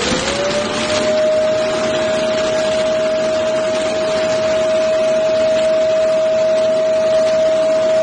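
Xiaomi Mijia Omni base station's dust-collection suction motor emptying the docked robot vacuum's dustbin: a loud rush of air with a steady high whine, which finishes rising to full speed in the first half-second and then holds.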